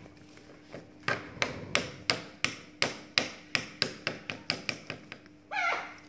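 A parrot tapping sharply and repeatedly on a small square mirror on a wooden tabletop, about fifteen taps, quickening toward the end, then one short squawk.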